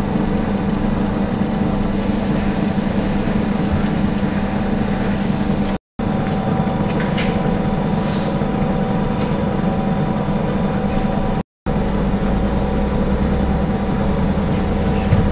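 Steady machinery hum: a low drone with several held tones, broken by a few faint clicks. The sound cuts out completely for a split second twice.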